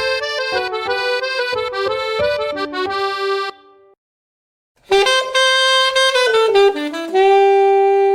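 Two Huawei G Play Mini ringtone melodies played back to back. The first, a quick run of notes, ends about three and a half seconds in. After a short silence the second starts with a held chord, steps down, and settles on a long held note.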